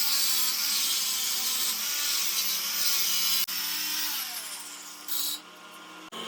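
An electric power tool running against metal, a loud high hiss with a wavering whine. About four seconds in the whine falls in pitch and the sound drops away, with a short loud burst near five seconds.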